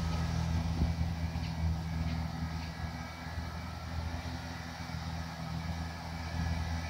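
Kubota G2160 ride-on mulching mower's engine running steadily, a low even drone.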